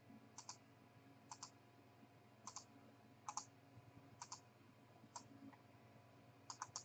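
Faint, sharp clicks, mostly in quick pairs, about once a second, over a low steady hum.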